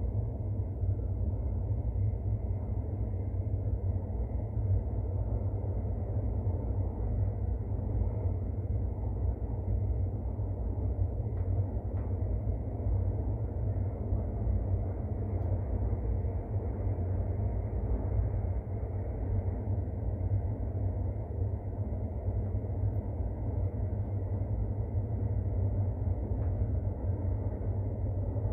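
Steady low rumble of a Santiago Metro AS-14 train running through a tunnel, heard inside the car.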